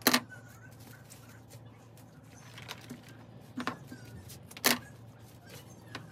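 A few sharp clicks and knocks from rose stems being handled, trimmed and set into a glass vase, the loudest three right at the start, about three and a half seconds in and about a second later, over a steady low hum.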